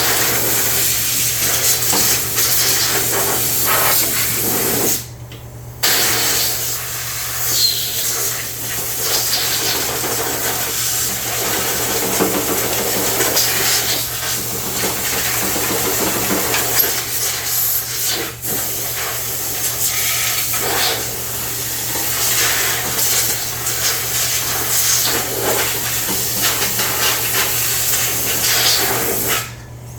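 A loud steady hiss over a low steady hum. The hiss stops for about a second around five seconds in and cuts off near the end.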